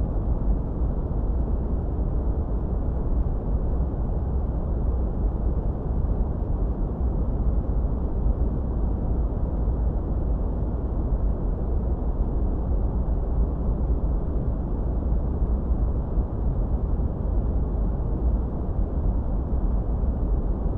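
Steady low rumbling wind noise, heaviest in the bass and fluttering in level without a break.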